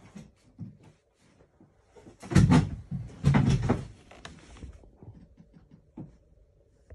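Handling noise from a plastic camera drone being grabbed and shifted on a bed: two bursts of clattering knocks and rubbing about two and a half and three and a half seconds in, then one small knock near the end.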